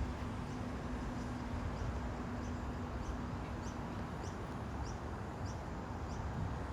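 A bird giving short, high chirps over and over, about two a second, over a steady outdoor background rumble; a low hum underneath stops about halfway through.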